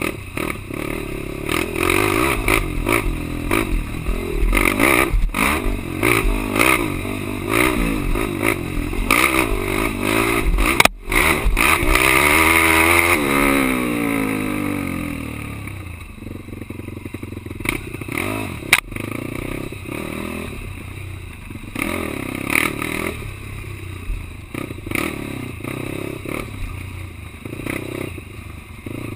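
Quad (ATV) engine revving up and down hard, with rattling and scraping over rough ground. About halfway through the revs fall away in one long drop, and the engine then runs more quietly with the throttle still coming on and off.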